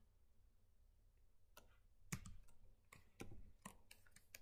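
Faint keystrokes on a computer keyboard: about half a dozen separate key clicks, starting about a second and a half in, as a line of code is typed.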